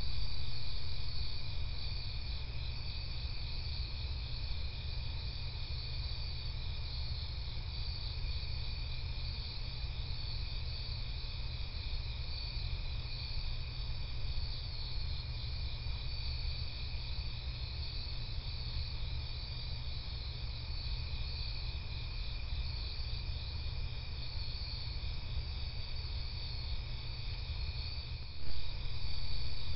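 Crickets and other night insects chirping steadily in a dense chorus over a low steady rumble, with one brief loud thump near the end.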